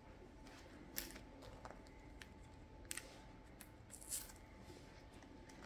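Faint rustling and a few light clicks of a Panini trading card being slid into a clear plastic pocket of a collector's album page, with a short rustle about four seconds in.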